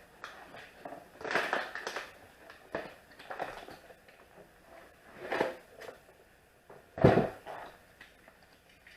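A new 3D-printer filament spool's packaging being handled and opened: a series of separate crinkles, rustles and knocks, the loudest a thump about seven seconds in.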